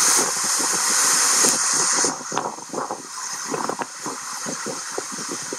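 Wind on the microphone and waves breaking on a sandy shore: a loud rushing for about two seconds, then a lower, uneven rush of surf with many small splashes and crackles.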